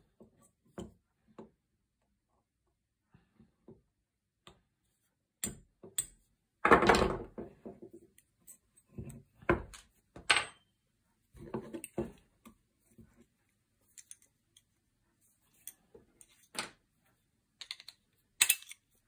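Steel shotgun action parts and small hand tools handled and set down on a wooden table: scattered light clicks and clinks, with one louder clattering knock about seven seconds in.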